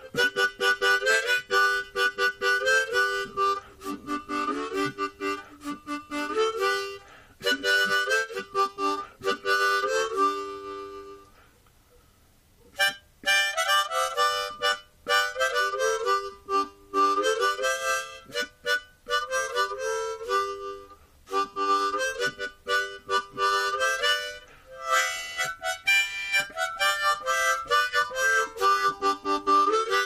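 Harmonica music playing a melody of short notes and chords, breaking off briefly about twelve seconds in.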